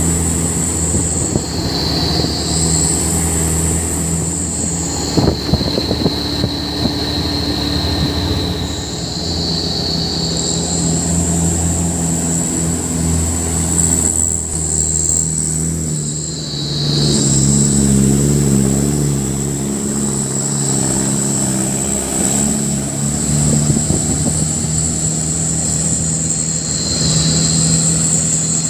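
Heavy truck engine running, its note getting louder and a little higher about two-thirds of the way through. A high, shrill tone keeps coming and going above it.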